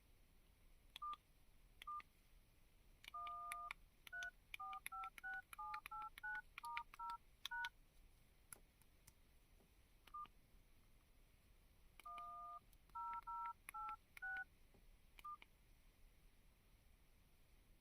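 Keypad tones of a CPPO shanzhai mobile phone: short two-tone DTMF beeps with faint key clicks as digits are pressed. There are two quick runs of about a dozen and about eight presses, with single beeps before, between and after them.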